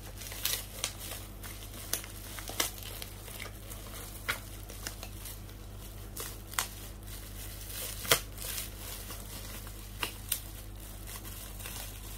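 Thin black plastic courier bag crinkling and crackling in irregular snaps as it is handled and pulled open by hand.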